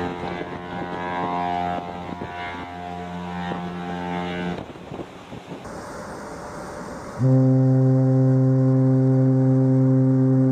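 Ship's horn sounding two deep blasts. The first lasts about four and a half seconds and shifts in pitch partway through. After a short pause comes a louder, steady blast of about three and a half seconds that cuts off suddenly.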